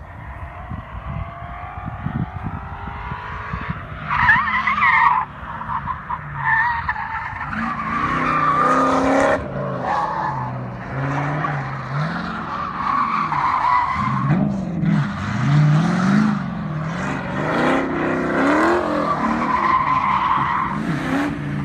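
TVR Griffith 500's V8 revving hard and dropping back again and again as the car is slid through a cone course, with tyres squealing in wavering screeches, loudest about four seconds in.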